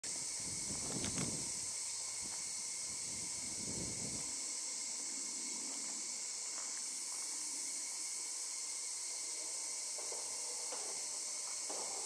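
Steady, high-pitched drone of insects, with a low rumble during the first four seconds or so that then stops.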